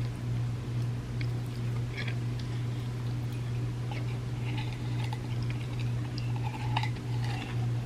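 Close-miked chewing of chocolate chip cookie cups layered with chocolate wafers: scattered small crunches and mouth clicks, thicker in the second half, over a steady low hum.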